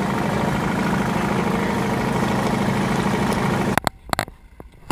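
Small boat outboard motor running steadily under way, with rushing noise over it. It cuts off abruptly about four seconds in, followed by a few sharp knocks.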